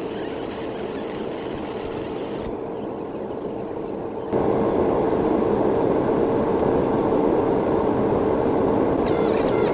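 Fiber laser engraving machine running with a steady fan hum. The hiss of the beam marking stainless steel drops out about two and a half seconds in, the hum turns louder about four seconds in, and faint wavering high tones join near the end.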